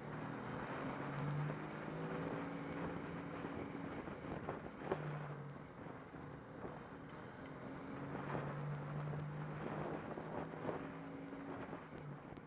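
Car engine running with its pitch rising and falling, under a wash of wind and road noise, with a few sharp clicks.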